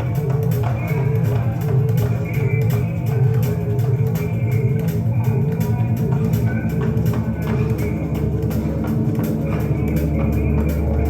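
A rock song with guitar, bass guitar and drums. A steady deep bass note comes in about a second and a half before the end.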